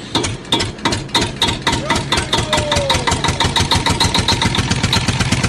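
An engine running with a rapid, even pulse.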